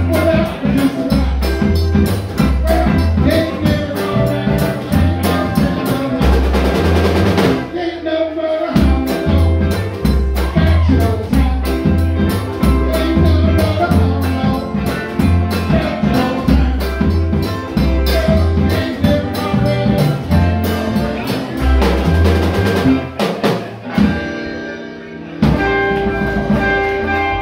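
A live band playing an up-tempo song on drum kit and electric guitars over a stepping bass line. The band stops for a moment about eight seconds in. Near the end the playing thins out and held guitar notes ring on.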